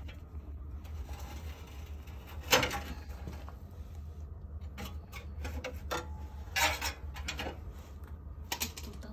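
Metal clinks and scrapes as a car's exhaust pipe and clamp are handled by gloved hands from underneath, in scattered short knocks with two louder scrapes, one a few seconds in and one past the middle.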